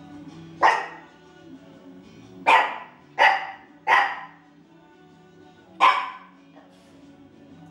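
A young papillon barking: five sharp barks, one, then three in quick succession about two seconds later, then one more. They are warning barks aimed at a burning incense stick the dog dislikes. Quiet background music plays underneath.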